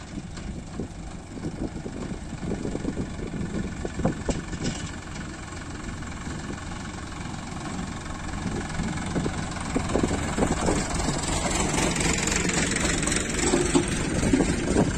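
Tractor diesel engine running steadily under irregular knocks, getting louder through the second half.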